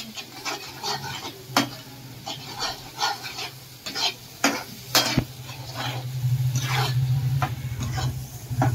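Metal spoon stirring and scraping a sizzling onion-tomato masala in a black iron pan, with a few sharp clinks of the spoon against the pan. A low steady hum grows louder in the second half.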